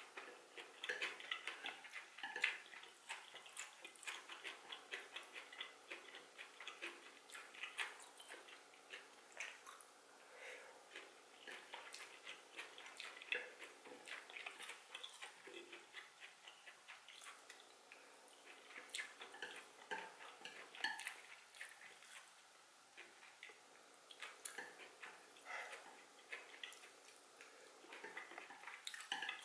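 Wooden chopsticks clicking and scraping on a ceramic plate while picking up food, with soft chewing and mouth sounds close to the microphone, in many small irregular clicks.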